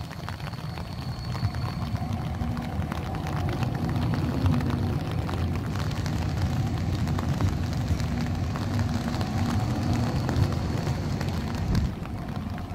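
Stadler Tramlink electric light-rail car passing close by at low speed: a low rumble of wheels on the rails with a steady motor hum and a faint high whine, building as it draws alongside and dropping a little near the end.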